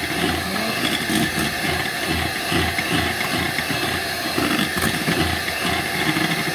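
Handheld electric mixer running steadily, its beaters whipping egg yolks, salt and flour into stiffly beaten egg whites for a frying batter, with a pulsing low churn under the motor whine.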